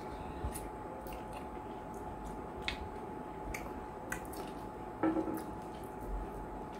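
Wet squishing of fingers working banku and slimy okra soup by hand, with scattered soft wet clicks.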